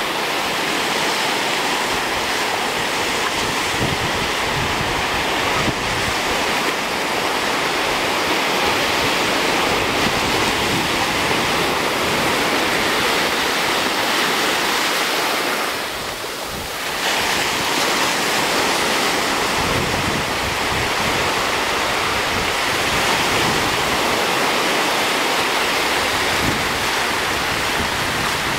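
Small ocean waves breaking and washing up the shore in a steady rush, with wind buffeting the microphone. The rush dips briefly about sixteen seconds in.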